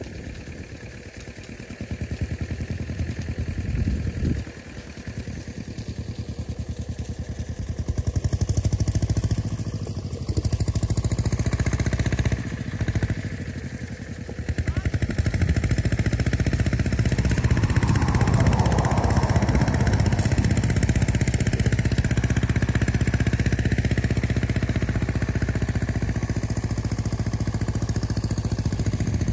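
Tractor engine running steadily, its firing pulses coming through as a continuous hum; it gets louder from about halfway through and then holds steady.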